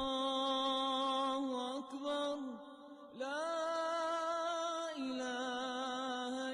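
Background vocal music: a single voice chanting long, held notes that waver slightly. It dips briefly about two and a half seconds in, then glides up into the next held note.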